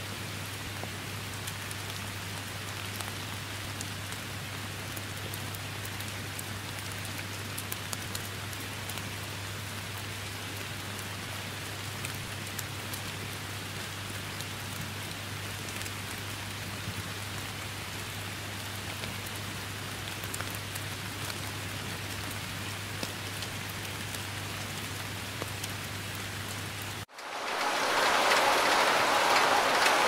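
Steady rain falling, an even hiss with light patter of drops and a faint low hum beneath. About 27 seconds in it cuts out for an instant and gives way to a much louder, denser downpour.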